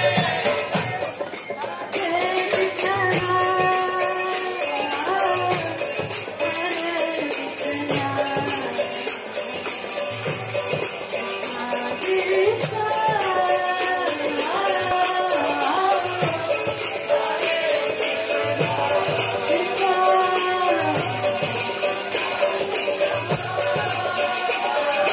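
Kirtan: voices chanting a devotional melody over a steady beat of small hand cymbals and a mridanga drum.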